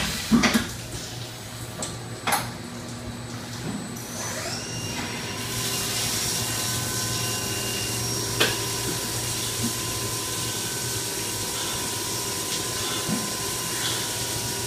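CNC milling machine during four-axis machining: a few sharp knocks in the first seconds, then the spindle spins up about four to five seconds in and runs on with a steady whine over a constant hiss.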